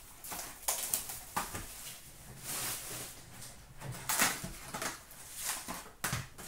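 Cardboard hockey card box (SP Authentic) being handled and opened by hand: a series of short rustles and scrapes of paperboard as the box is slid, its lid opened and the contents lifted out.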